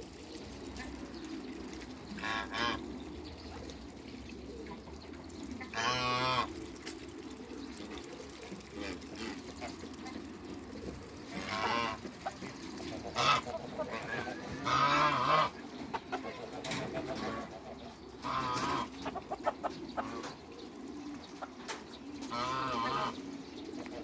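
Farmyard fowl calling off and on: about seven short calls spread across the stretch, the loudest near the middle, over a steady low background hum.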